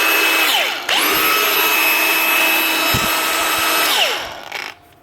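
Milwaukee 4.5-inch cordless brushless angle grinder running free at full speed with a steady whine. It is let off about half a second in and starts to wind down, then is triggered again a second in and runs up to speed. Near the end it winds down to a stop. It spins freely on a newly fitted 605 rear bearing, after being seized by the failed one.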